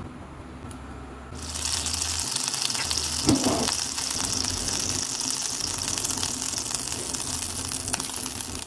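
Food sizzling in hot frying oil. The steady crackling sizzle starts suddenly about a second in, with a single soft knock a couple of seconds later.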